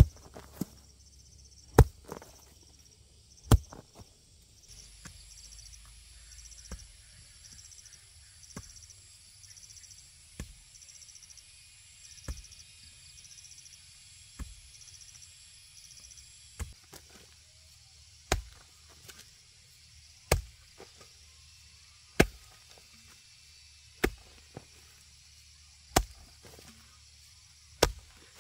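A hand tool striking repeatedly in a steady rhythm of single blows, about one every two seconds, the blows softer through the middle and harder near the end. Insects chirr steadily in the background.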